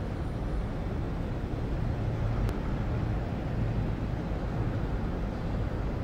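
City street ambience: a steady, low rumble of road traffic.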